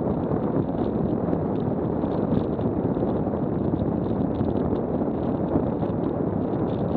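Steady wind rush on the microphone over the rolling rumble of a WAW velomobile moving at about 17 mph, with faint light ticks scattered through it.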